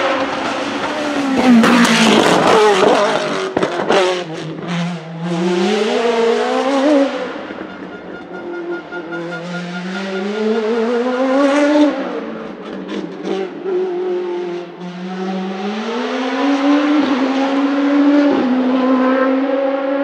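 Hillclimb racing prototype's engine at full throttle, pulling away up the hill: its pitch climbs through a gear, drops sharply at each upshift, then climbs again, several times over. In the first few seconds it comes with a cluster of sharp cracks and pops.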